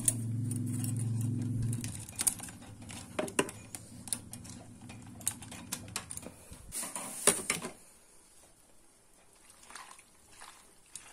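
A steady low hum that stops about two seconds in, then a run of light clicks and knocks of a kitchen utensil against a pot and its contents, loudest about seven seconds in, as a pot of chopped eggplant with garlic and peppercorns is got ready and stirred.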